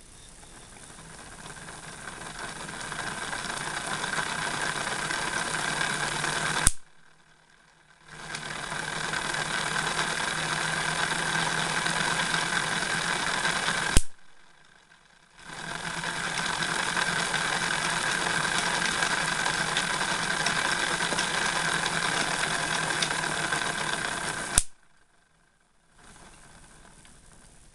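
Homemade Wimshurst machine with hand-turned disks, whirring as the disks spin and rising in level as they come up to speed. Three times the charge jumps the gap between the ball electrodes with a single sharp spark crack, about 7, 14 and 25 seconds in. Each crack is followed by a second or so of near quiet before the whirring builds again.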